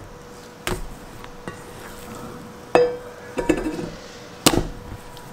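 Stainless steel mixing bowl knocked and bumped about four times, with a short metallic ring after some of the knocks.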